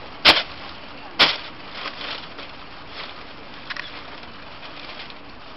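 A large prop mooncake punched open: two sharp pops about a second apart, then crackling of torn paper and rustling as a cloth banner is pulled out of it.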